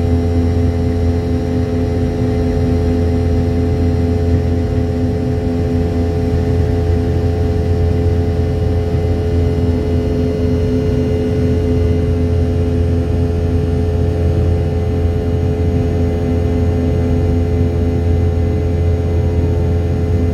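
Cabin noise of a Boeing 717 in its climb after takeoff: the steady drone of its rear-mounted Rolls-Royce BR715 turbofans, a deep hum with several constant tones over a steady rush of air.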